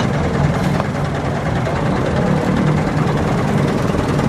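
Heavy dump truck engine running steadily with a low, even hum.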